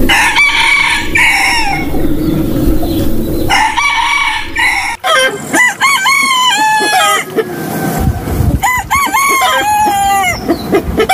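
Roosters crowing, one call after another, loud. After a cut about five seconds in, the crows come as quick runs of short rising-and-falling notes.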